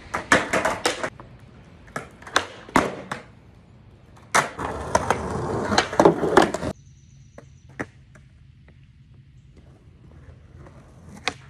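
Skateboard tricks on concrete: clusters of sharp pops and clacks of the board hitting the ground, then wheels rolling with more clacks for about two seconds. The rolling cuts off abruptly about two thirds of the way through, leaving only a few faint clicks.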